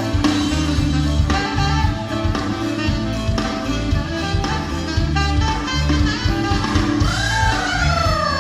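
Instrumental band music in a jazzy style, with a pulsing bass line and guitar under pitched lead lines. Near the end a lead note slides downward in pitch.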